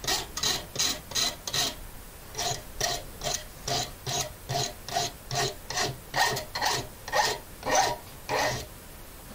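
Hand file rasping across the edge of a wrought iron dagger blade held in a vise, in steady push strokes about two a second, shaping and softening the curve of the blade toward the tip. The strokes pause briefly about two seconds in, then run on and stop shortly before the end.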